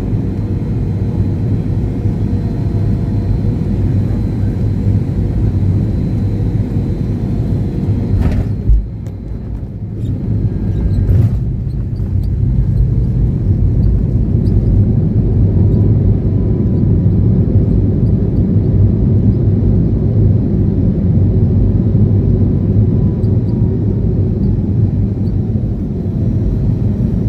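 Airliner landing: a loud, steady low rumble of engines and rushing air. A sharp click comes about eight seconds in, the rumble briefly drops, then builds again and holds.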